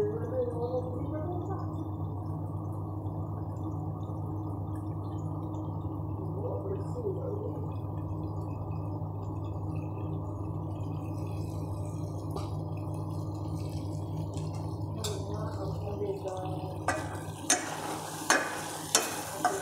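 A steady low hum from the kitchen. In the last few seconds a utensil clatters and scrapes inside the stainless steel pot of simmering chicken adobo as it is stirred.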